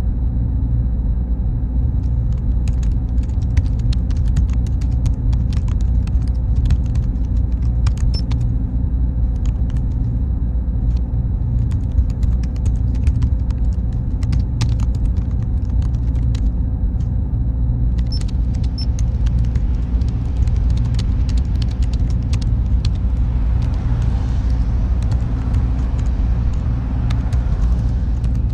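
Steady low hum and rumble of a computer server room, with a thin high whine over it. From about two seconds in, irregular scattered clicks sound on top.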